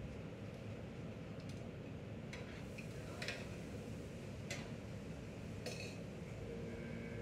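Pots, pans and utensils clinking a handful of times in the middle, over a steady low rumble.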